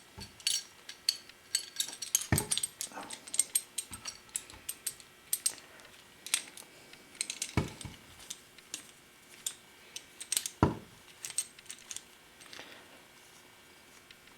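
Small metal parts clinking and tapping, with three heavier knocks, as a wire terminal end on 2 gauge cable is fitted into the clamp bar of a flaring tool. The handling stops about twelve seconds in.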